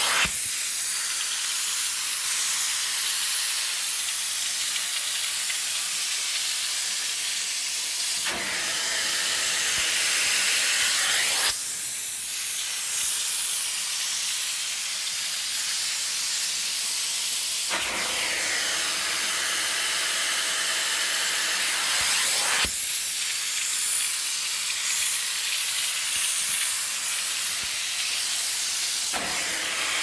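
Hot-water extraction upholstery tool on fabric: its vacuum suction makes a steady, loud hiss. The tone shifts every few seconds, each change marked by a short click.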